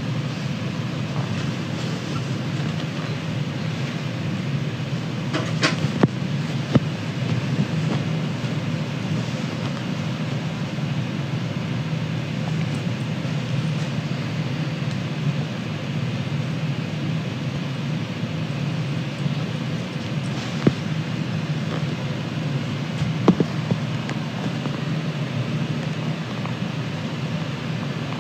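Steady low background noise, with a few short faint clicks, a cluster about six seconds in and two more later.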